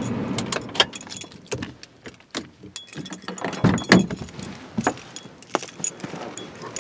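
Keys jangling with scattered sharp clicks and knocks of handling, and a low rumble fading out in the first second.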